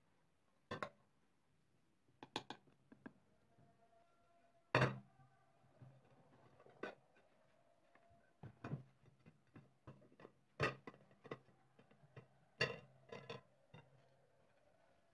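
Scattered knocks, clinks and scrapes of a metal pot and ceramic dishes as semolina helva is packed into a bowl and turned out onto a plate. The loudest knock comes about five seconds in.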